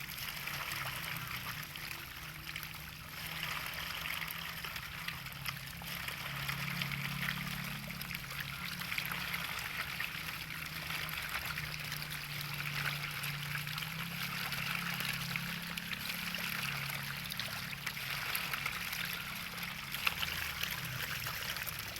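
Water running and trickling steadily, with a low, wavering hum underneath.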